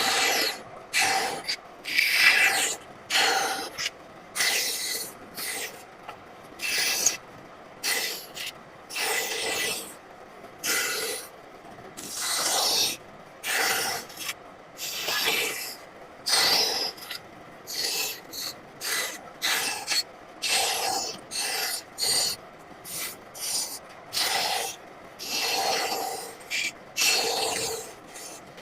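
A hand tool rasping on wood in short, irregular strokes, about one or two a second, with brief gaps between them.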